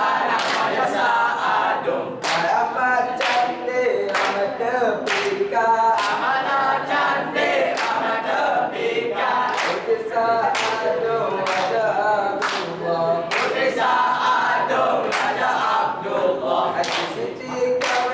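A dikir barat chorus: many young voices singing together in Kelantanese Malay, with regular sharp hand claps in time.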